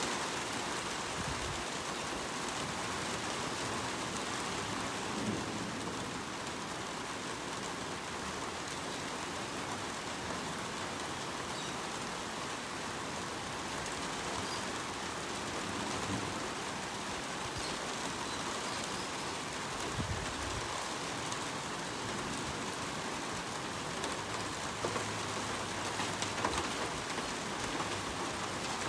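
Steady rain falling, with a few sharper taps near the end that sound like hail starting.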